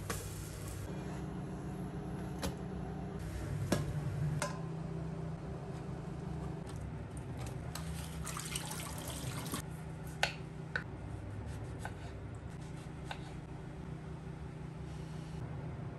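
A few light knife taps on a bamboo cutting board as strawberries are sliced, over a steady low hum.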